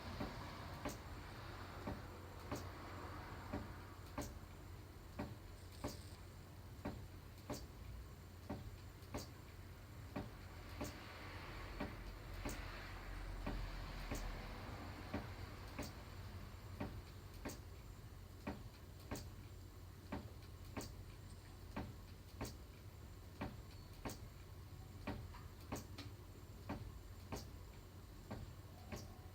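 Wooden rocking chair rocking at an even pace, each swing giving a sharp tick-like creak or knock, over a steady low hum.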